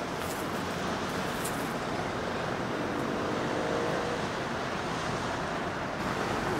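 Steady outdoor rushing noise, mostly wind on the microphone, with a faint hum about three seconds in; the tone of the noise shifts near the end.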